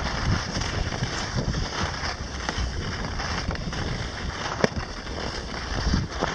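Skis hissing and scraping over groomed snow during a run, with wind buffeting the microphone and a sharp click about four and a half seconds in.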